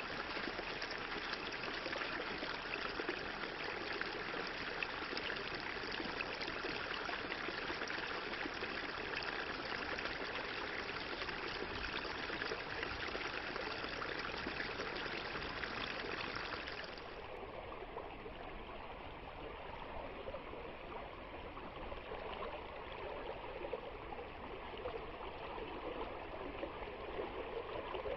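A river or stream flowing over rocks, a steady rushing and trickling. About 17 seconds in it turns quieter and duller, as from another stretch of water.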